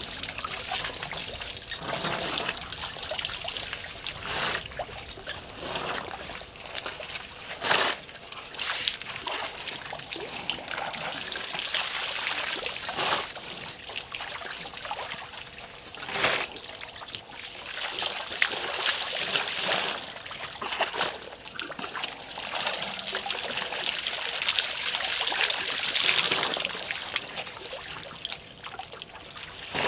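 African elephants drinking at a waterhole: water trickling and splashing as their trunks draw it up and spill it, with a few sharper, louder splashes about 8 and 16 seconds in.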